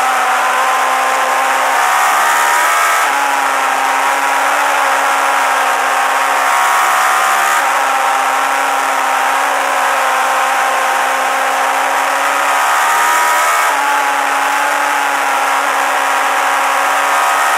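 Suzuki GSX-R1000 race bike's inline-four engine running hard at high revs, heard from onboard. Its pitch glides and steps a few times, over steady wind rush.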